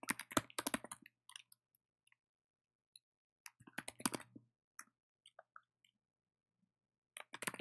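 Typing on a computer keyboard: short bursts of key clicks separated by pauses of a couple of seconds.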